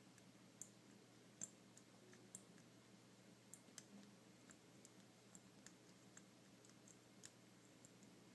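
Faint, irregular clicks of the number wheels on an Abus 155/40 combination lock being turned one notch at a time while the shackle is pulled under tension, feeling for the digit where the wheel loosens.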